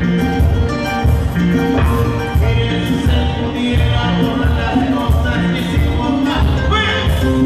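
Live band playing Latin dance music: bass, electric guitars, hand percussion and keyboard together at full volume, with a steady pulsing bass line.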